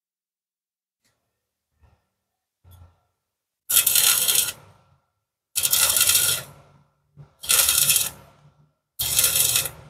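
Stick-welding arc on a steel square-tube joint, struck and broken again and again: after two faint touches of the electrode, four crackling arc bursts of about a second each with short pauses between. This is the stop-start technique for running a vertical weld.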